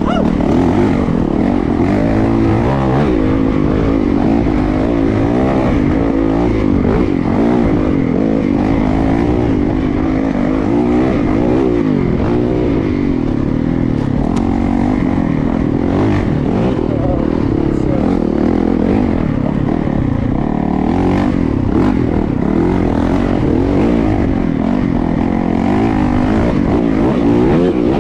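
Yamaha YZ450FX dirt bike's single-cylinder four-stroke engine running under throttle, its pitch constantly rising and falling as the rider rolls on and off the gas.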